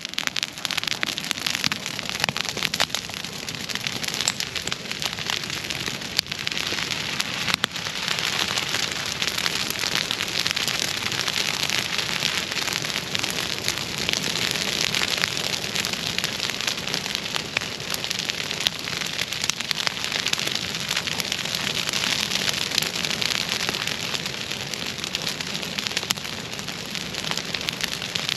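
Dry broomsedge grass burning, a dense steady crackling full of sharp pops.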